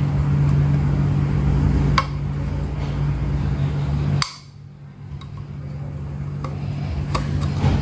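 A small screwdriver prying the plastic inner cover off a car distributor, with sharp clicks as the cover's clips let go: one about two seconds in, one about four seconds in and two near the end. A steady low hum cuts off about four seconds in.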